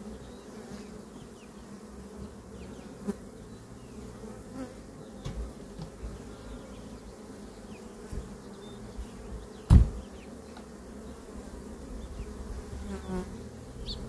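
Honey bees buzzing in a steady hum around opened hives; the colonies are agitated and stressed after being opened without smoke. A single loud knock comes about ten seconds in, with a few lighter knocks before it.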